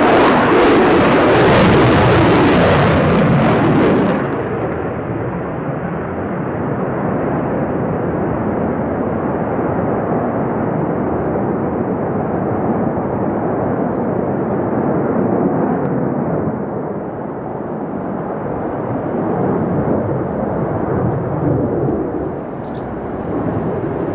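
Jet engine noise from a Sukhoi Su-35 fighter's twin afterburning turbofans during a flying display. It is loudest and harshest for about the first four seconds, then turns duller and steadier, swelling and easing slowly.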